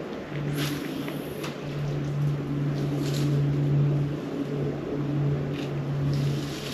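Steady low engine hum that drops out briefly a few times, with a few faint clicks and rustles over it.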